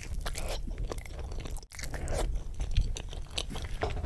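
Close-miked chewing of a fried chicken wing: many short, wet crunches and crackles of the breaded skin as it is bitten and chewed. There is a brief break about two-thirds of the way through.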